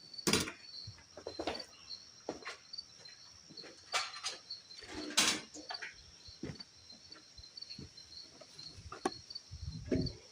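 Scattered knocks and clicks from hands handling parts on a small portable generator, the loudest about a third of a second in and around four and five seconds, with no engine running. Insects chirp steadily and high in the background.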